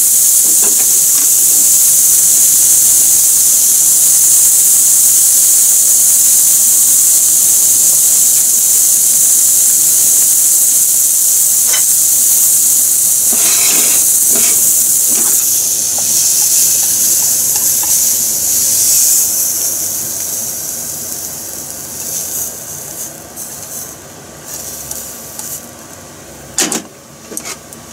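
Julienned carrot and green pepper sizzling in oil in a frying pan, a steady hiss that dies away over the last several seconds as the pan comes off the heat. A few light knocks sound around the middle and near the end.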